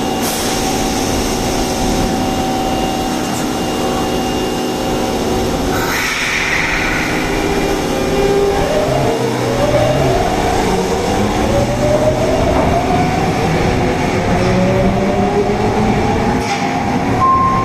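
Osaka Metro 22 series subway car running, with a brief rush of noise about six seconds in, then the traction motors' whine rising steadily in pitch as the train pulls away and accelerates.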